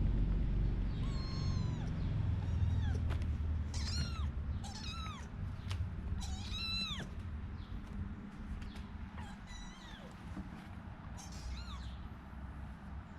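Kittens mewing: a string of short, high-pitched mews, most in the first seven seconds and one more near the end, over a low rumble.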